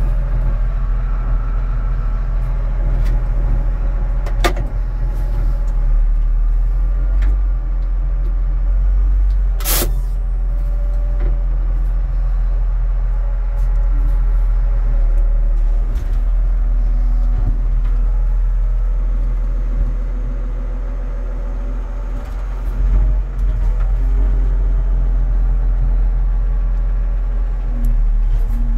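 Engine of a Stinger Stacker 8500 self-propelled bale stacker running, heard inside its cab: a steady low drone with fainter tones coming and going above it. A few sharp knocks cut through, the loudest about ten seconds in.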